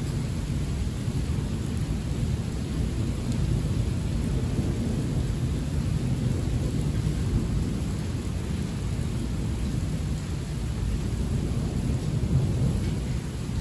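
Heavy rain in a thunderstorm: a steady, dense rain noise weighted toward a low rumble, with no single sharp thunderclap.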